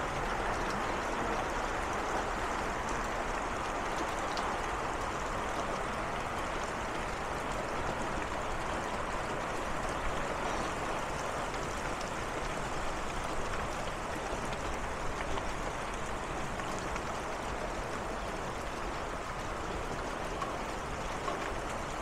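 Steady downpour of rain during a storm: a continuous, even hiss of falling water that holds level throughout.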